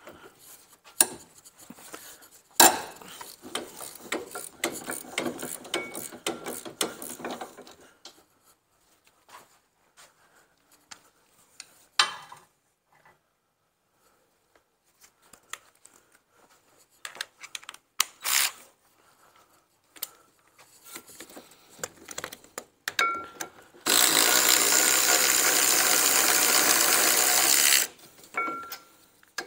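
Hand ratchet clicking on a rear brake caliper carrier bolt for the first several seconds, then scattered knocks and tool clatter. Near the end a cordless power tool runs steadily for about four seconds on the carrier bolt.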